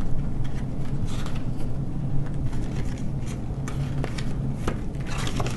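Pages of a paperback booklet being flipped through by hand: a quick, irregular run of paper flicks and rustles over a steady low background hum.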